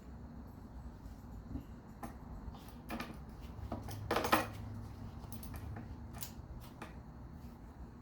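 Metal tools and engine parts clinking and knocking during hand disassembly of an engine: scattered clicks, with the loudest clatter about four seconds in.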